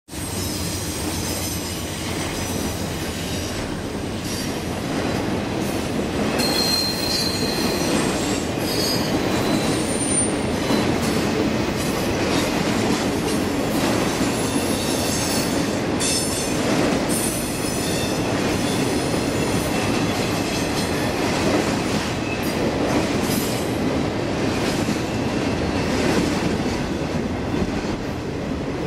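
Intermodal freight train of trailers on flatcars rolling steadily past on a curve, with wheels rumbling over the rail and high-pitched flange squeal coming and going.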